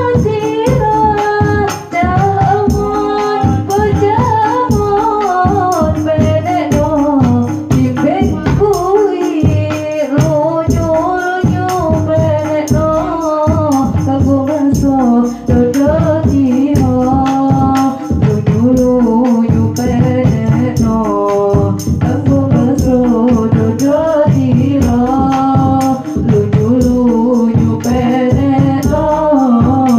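A woman sings sholawat, an Islamic devotional song, through a microphone and loudspeakers. A rebana ensemble keeps a dense, steady rhythm under her: frame drums, kendang hand drum, bass drum and jingling kecer small cymbals.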